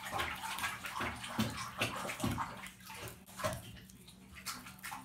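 Plastic wrapping crinkling and scissors snipping as a bath bomb is cut open and unwrapped by hand, in many short irregular crackles. Water sloshes in a bathtub alongside.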